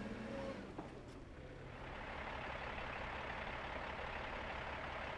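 Truck engine running, with an even rushing noise that builds from about two seconds in.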